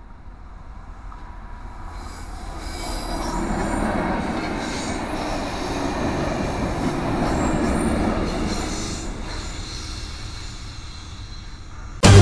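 Freight train of flat wagons hauled by a small diesel locomotive passing close by, its wheels running on the rails; the sound builds over the first few seconds, holds, then fades. Music cuts in suddenly at the very end.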